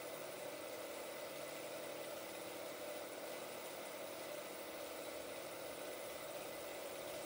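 Old 16mm film projector running: a steady mechanical whir.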